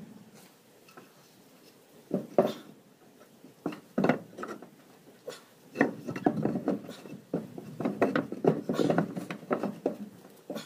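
Irregular knocks, scrapes and clatter of hands working at the base of a small wooden doghouse, starting about two seconds in and busiest in the second half.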